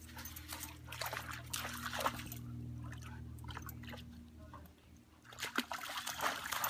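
Dogs wading and splashing through a shallow creek, the water sloshing and trickling around their legs in irregular bursts that ease off in the middle and pick up again near the end.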